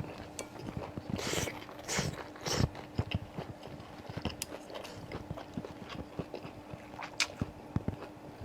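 Close-miked chewing and biting of tripe: irregular wet clicks and smacks of the mouth, with a few louder bites, over a faint steady hum.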